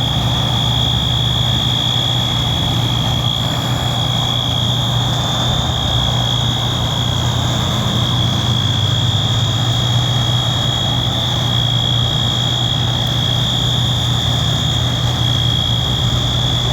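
Wheelock MT fire alarm horn sounding one steady, unbroken high tone, the building's fire alarm in alarm. Under it, the low steady rumble of idling fire-truck diesel engines.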